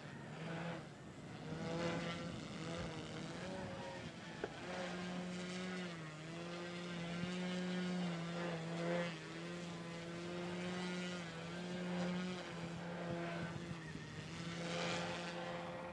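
Slipstream RC aerobatic plane's motor and propeller droning steadily while it hovers nose-up. The pitch steps up and down several times and the sound swells and fades as the throttle is worked to hold the hover.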